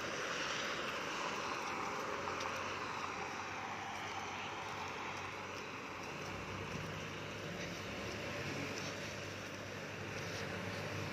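Motor vehicle traffic on a wet road: a hiss of tyres on wet pavement that swells and falls away over the first few seconds, then a low engine hum that builds from about halfway through as a vehicle approaches.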